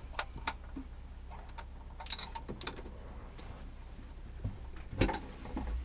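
Small metal clicks and taps, irregularly spaced, as a wrench is fitted onto and worked against the nuts holding the cover plate of a marine generator's impeller pump, with one louder knock about five seconds in.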